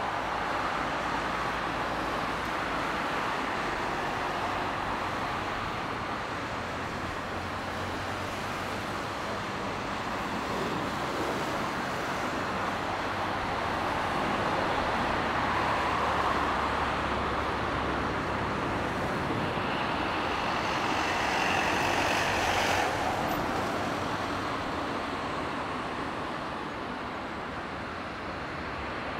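Airbus A350-900 airliner's Rolls-Royce Trent XWB jet engines through a landing: a steady rushing roar from final approach through touchdown and rollout. It swells about halfway through, and again a little past two thirds of the way, where a high whine comes in and then cuts off sharply.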